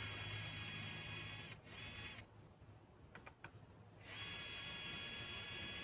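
A small motor whirs steadily in two stretches, stopping for about two seconds in the middle. A few light clicks sound during the pause.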